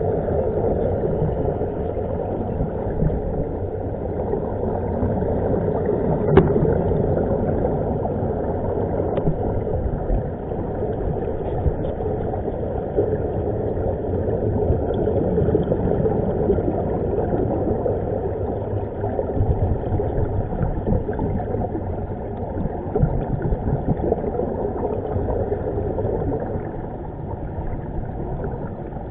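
Steady muffled underwater rumble and bubbling of air streaming out of the divers' air-fed helmets, recorded through an underwater camera housing, with a single click about six seconds in.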